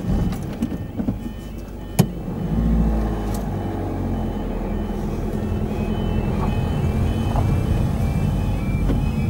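Vehicle engine and road noise as it rolls up to an automatic half-barrier level crossing, with the crossing's repeating warbling alarm sounding from about three and a half seconds in while the barriers are down and the red lights flash. A sharp click about two seconds in.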